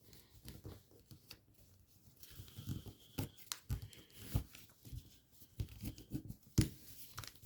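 Paper being folded and creased by hand: faint, irregular crinkles and short crackles as the fold is worked and pressed flat, the loudest a little past six seconds in.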